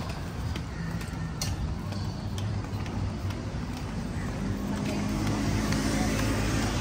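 An engine running steadily, with a low hum under road or traffic noise that swells a little near the end.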